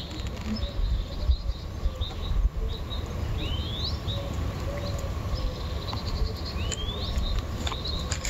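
Small birds chirping: short repeated chirps and twice a rising whistled call, over a steady low rumble.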